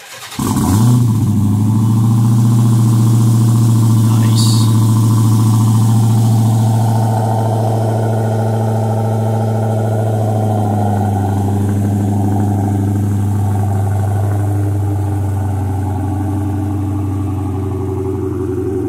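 2016 Dodge Charger Hellcat's supercharged 6.2-litre Hemi V8 starting up, heard from behind at the exhaust tips. It fires about half a second in and then idles with a deep, steady exhaust note. The note settles slightly lower in level and pitch partway through.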